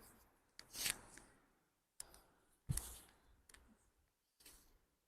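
Several short knocks, clicks and rustles from a chiropractic treatment table and the patient's body being turned and moved on it. The loudest is a dull thump about three seconds in.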